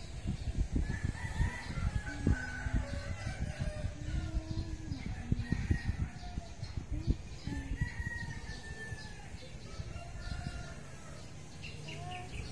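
Roosters crowing again and again, over a low rumbling noise that is strongest in the first few seconds.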